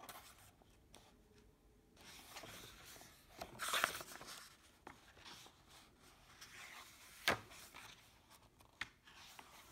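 Pages of a large hardbound picture book being turned and smoothed by hand: soft paper rustling, with a louder page swish about four seconds in and one sharp click a little after seven seconds.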